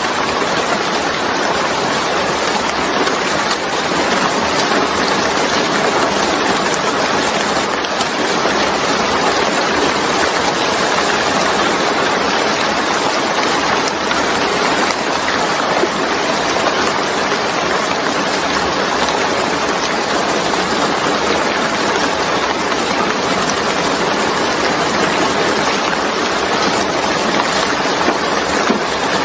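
Steady heavy rain: a dense, even hiss of falling rain and drops hitting a surface.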